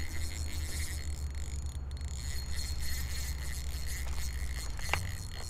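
Spinning reel being cranked to bring in a hooked fish, with a faint light whirring from the reel over a steady low rumble, and one sharp click near the end.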